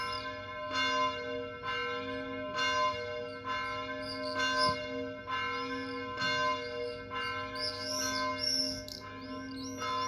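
A church bell tolling, struck about once a second with each stroke ringing on under the next, fading near the end. Many birds chirp high over it in short, quick calls.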